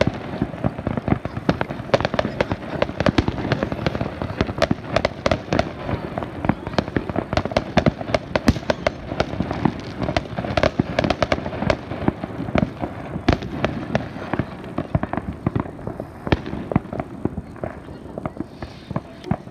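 Fireworks display: a rapid, continuous string of bangs and crackles from bursting shells, thinning out toward the end.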